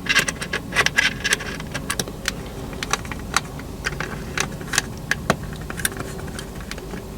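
Irregular small clicks and taps of a tiny screwdriver and small screws being worked into the plastic parts of a model railcar.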